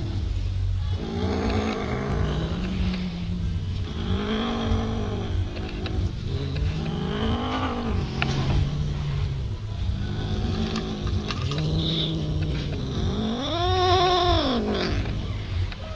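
Cats yowling in long drawn-out calls that rise and fall in pitch, one after another, over a continuous low growl, the loudest call near the end. These are the warning growls and yowls of cats squabbling over food.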